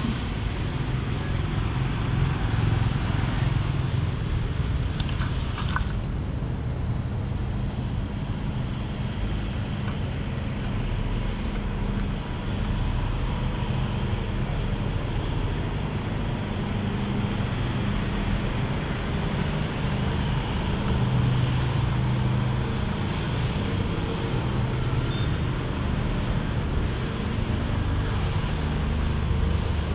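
Steady outdoor ambience of road traffic: a continuous low rumble with a faint hiss above it.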